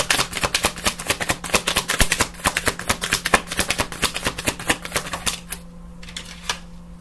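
A deck of tarot cards being shuffled: a rapid run of crisp card clicks that stops about five and a half seconds in, followed by a couple of single clicks.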